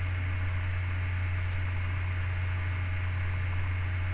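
Steady low electrical hum with a faint hiss, the recording's background noise between narration, with a few faint steady higher tones and no other events.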